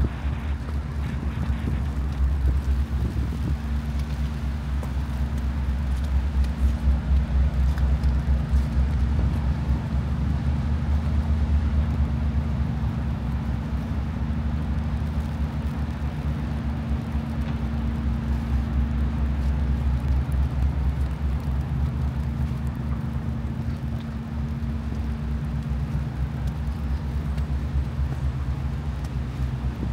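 Strong wind buffeting the microphone in a gusty low rumble, with a steady low hum underneath.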